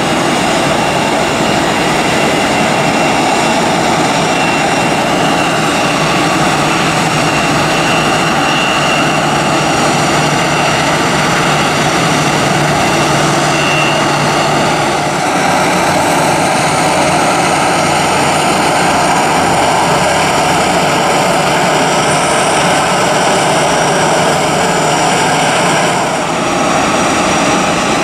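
Airbus A319-112's CFM56-5B turbofan engines at taxi idle: a steady jet whine and rush with a thin high tone above it.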